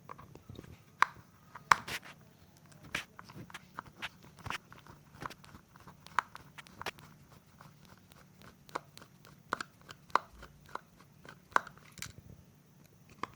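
Irregular sharp clicks and small knocks, a few of them loud, from the hand disassembly of a device: parts of its upper mainboard and belt section being unfastened and handled.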